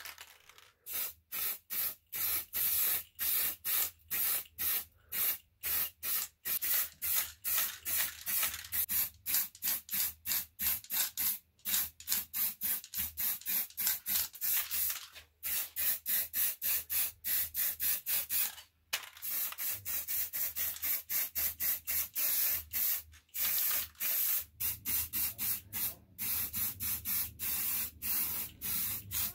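Aerosol spray paint can hissing in many short bursts, two or three a second, with brief gaps between them, as paint is sprayed onto an axe.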